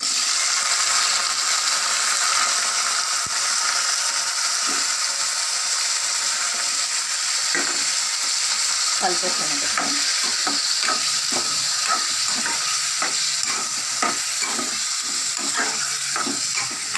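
Raw chicken pieces sizzling steadily in hot oil in a kadai with green chillies and curry leaves. From about halfway, a spoon scrapes and knocks against the pan in quick repeated strokes as the chicken is stirred.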